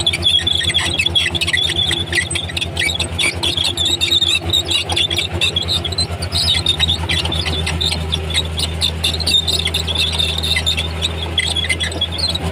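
Komatsu D31P crawler bulldozer at work: its diesel engine running with a low steady hum, under a continuous high, chattering squeal from the steel tracks and undercarriage.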